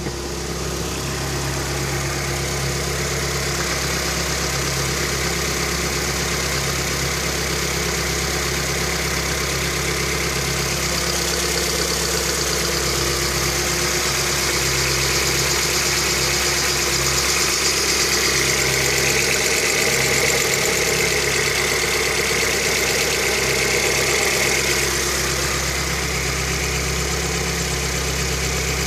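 Lada Kalina engine idling steadily, with the knock ('стук') that the owner is recording the engine for.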